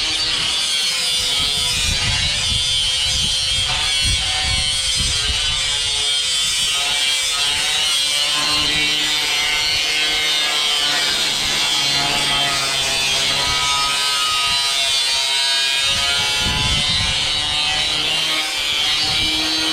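A power tool running continuously, with a steady high-pitched hiss over a wavering motor whine.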